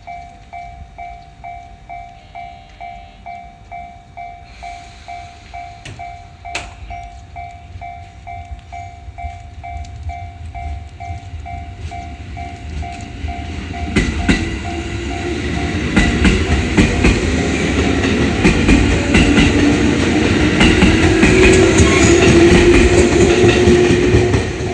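Japanese level-crossing warning bell ringing, about two strikes a second. About halfway through a train comes through the crossing, its rumble and wheel clatter growing until it is loudest near the end, with the bell still ringing over it.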